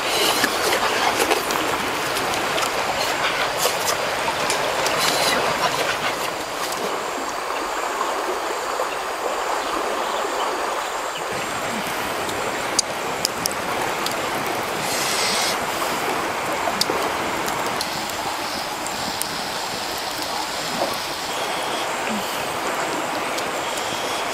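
A wood bonfire crackling and popping with scattered sharp snaps, more of them in the first few seconds, over the steady rush of a flowing stream.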